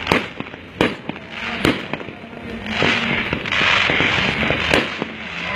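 Aerial fireworks shells bursting in a run of sharp booms, about four big reports with smaller pops between them. There is a stretch of hissing crackle in the middle.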